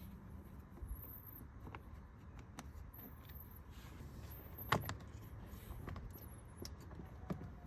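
Faint scattered clicks and small taps of a screwdriver backing a screw out of a car door's plastic window-switch panel, with one sharper click a little before five seconds in.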